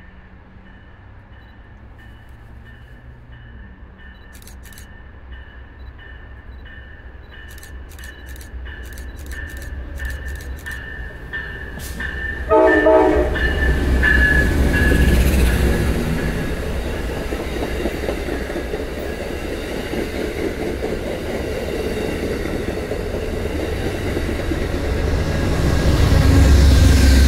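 An Amtrak Downeaster passenger train approaches and runs past at speed behind GE P42 diesel locomotives. A short horn blast sounds about halfway through as the lead locomotive reaches. Then comes a loud rumble and clatter of the diesel and coaches going by, which swells again near the end as the second locomotive passes.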